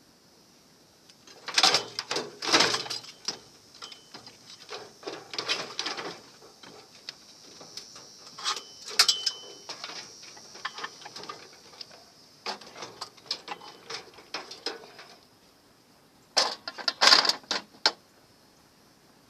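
Metal clanking and rattling from a scrap microwave oven being pulled apart by hand, in four bursts of quick knocks and clicks with short pauses between them.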